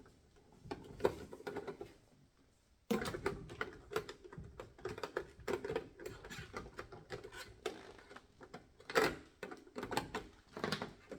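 Small plastic nebulizer parts being handled and fitted together: an uneven run of light clicks, taps and rustles as the tubing is pushed onto its connector and mouthpiece, with a short quiet gap about two seconds in.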